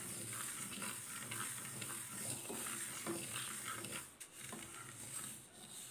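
Mustard seeds dry-roasting in a nonstick pan, stirred with a wooden spatula: a dense grainy rustle and scrape of seeds sliding over the pan. It eases off about four seconds in.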